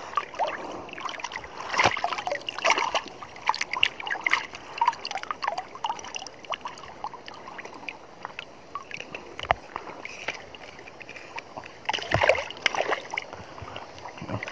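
Water splashing and sloshing close to the microphone, mixed with irregular clicks and rustles of gloved hands handling a caught fish near the lens. The sound is loudest about two seconds in and again near the end.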